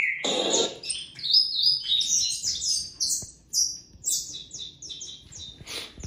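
Saffron finch (canário-da-terra) singing: a long run of quick, high chirping notes, many sliding down in pitch, with a brief louder noise at the very start.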